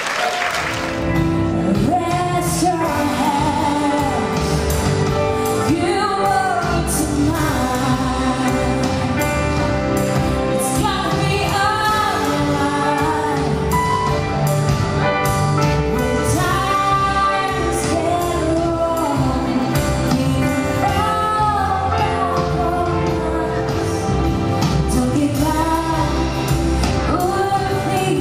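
Live vocal duet: a man and a woman singing a song together with piano accompaniment.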